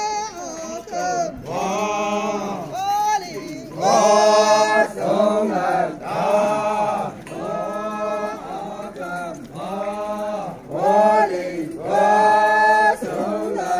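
A group of Naga men chanting together in loud, short rising-and-falling phrases repeated about once a second: a festival welcome chant.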